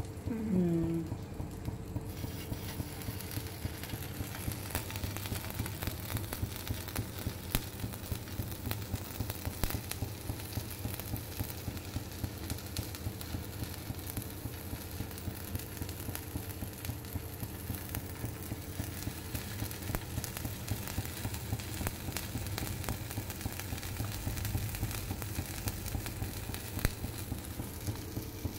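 Flour-coated paneer cubes shallow-frying in hot oil on a flat tawa: a steady sizzle with many small crackling pops.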